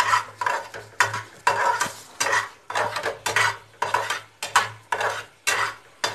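Metal spatula scraping and stirring semolina roasting in ghee in a metal pan, about two strokes a second; the semolina has been roasted until browned, the first stage of suji halwa.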